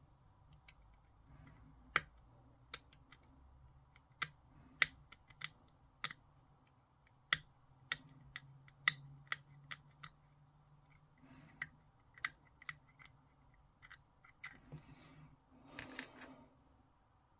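Plastic miniature parts being worked by hand: irregular sharp plastic clicks and snaps, densest and loudest between about two and nine seconds in, with a soft rustle near the end.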